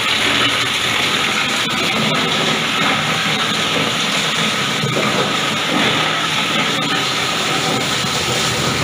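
Coconut shell and wood bark grinding machine running, a steady rushing mechanical noise with a few faint sharp clicks.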